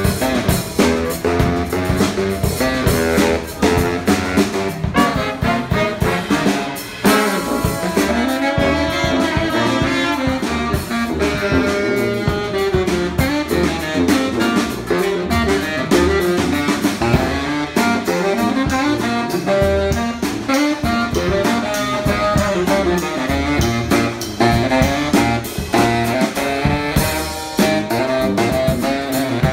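A live brass band playing: a tuba carries the low bass line under trombone and saxophone, with a drum kit keeping time.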